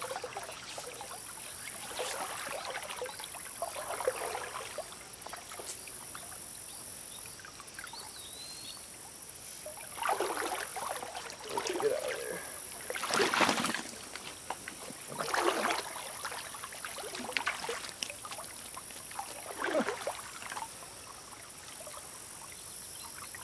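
Water splashing several times in a shallow creek as a small hooked trout is played and netted, the loudest splash about halfway through. Insects buzz high-pitched in the background in repeated bursts.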